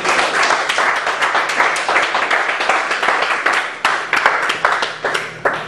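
A small group of people clapping, a dense run of hand claps that dies away just before the end.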